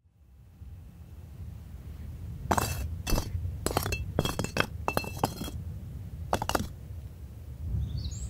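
A low rumble fades in, and over it a dozen or so sharp clinks, like small glassy objects knocking together, come in scattered clusters, each with a short ringing tone.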